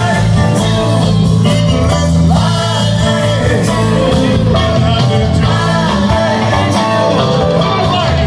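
Live rock band playing at full volume through a concert PA, heard from among the audience, with a steady bass line under guitar and keyboard parts.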